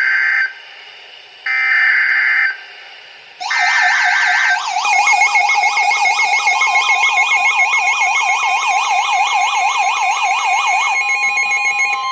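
NOAA Weather Radio sending three short bursts of screeching EAS digital header data, which announce a new warning. A receiver's alert alarm then warbles rapidly up and down. About halfway through, a steady attention tone joins it. The warble cuts off about 11 seconds in, leaving the steady tone.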